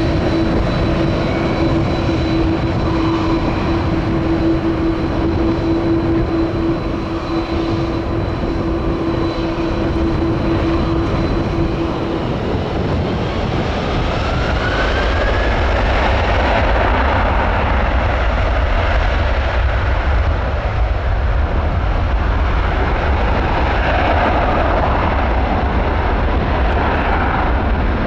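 Airbus A330-300 airliner's twin jet engines at take-off power as it rolls down the runway past and away. A steady engine tone runs until about halfway through, then a deep rumble strengthens through the second half.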